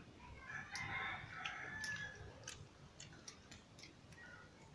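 A rooster crowing faintly in the background for about a second and a half, starting about half a second in, over scattered light clicks of hand-eating from steel plates.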